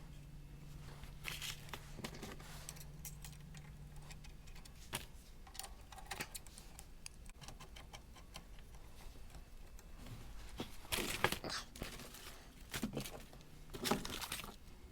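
Scattered clinks, clicks and small rattles of metal tools and parts being handled during an exhaust installation, with a denser cluster of rattling about eleven seconds in and again near the end. A faint low hum runs under the first few seconds, then stops.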